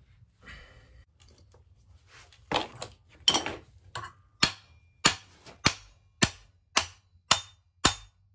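Claw hammer striking the steel bolt of a tightened flywheel puller on a Yamaha Moto 4 350 engine, a string of sharp metallic hits with a brief ring, about two a second, starting a couple of seconds in. Tapping the loaded puller like this shocks the flywheel free of the crankshaft taper.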